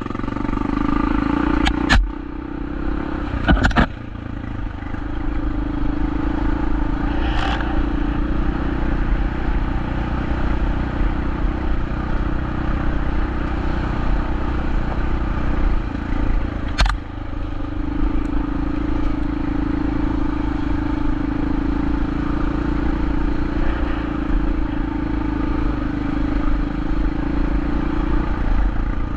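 Motorcycle engine running at a steady speed while being ridden, with rushing noise and a few sharp knocks, one about two seconds in and another about seventeen seconds in.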